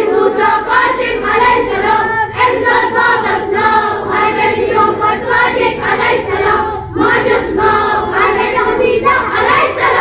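A group of children chanting in unison, a devotional recitation of the names of the twelve Shia Imams, with a short pause for breath about seven seconds in.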